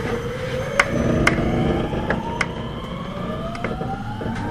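Mitsubishi IGBT VVVF inverter and traction motors of a JR West 521 series electric train accelerating, heard inside the motor car: a whine of several pitches rising steadily, with a second rising whine joining about three seconds in. Rumbling running noise underneath, with a few sharp clicks.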